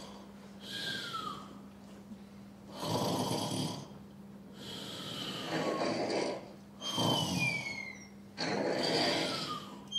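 Comic imitated snoring for sleeping puppet characters: a series of rasping snores, several ending in a thin whistle that falls in pitch.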